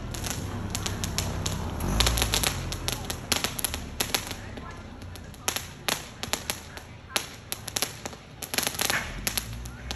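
Ground fountain firework spraying sparks and crackling, a rapid, irregular run of sharp pops that thickens about two seconds in.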